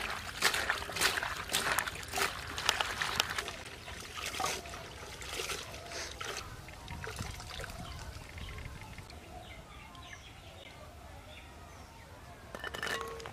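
Cut potato and eggplant pieces being washed by hand in a metal basin of water: splashing and sloshing, busiest in the first few seconds, then quieter trickles and drips, with a short splash near the end.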